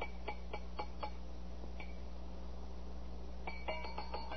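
Faint light metallic clicks and clinks, a sound effect: a quick run of ticks in the first second, a single one a little later, then a cluster of brief ringing clinks near the end, over a steady low hum.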